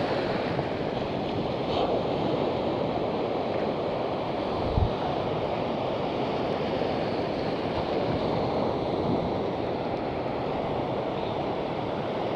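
Steady wash of sea waves on the shore with wind on the microphone; a short low thump about five seconds in.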